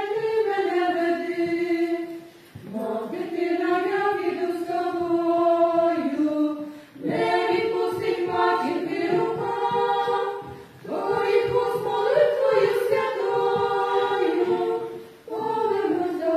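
A small ensemble of women singing a slow song together in harmony, in long held phrases with a brief pause for breath every four seconds or so.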